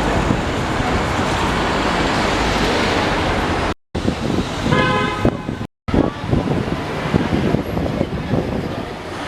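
Street traffic noise with a car horn honking briefly about five seconds in; the sound drops out twice for a moment.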